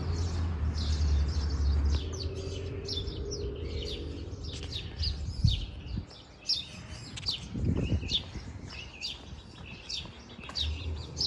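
Small songbirds chirping in the trees: many short, quick high chirps repeating all through, with a low rumble during the first couple of seconds.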